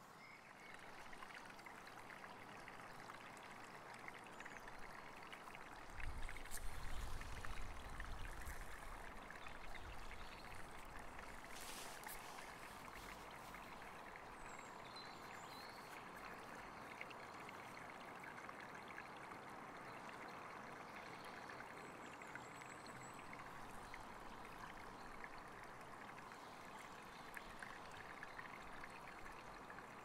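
Faint steady rushing outdoor ambience, like distant running water. A low rumble rises about six seconds in and lasts a few seconds. A few faint high chirps come later.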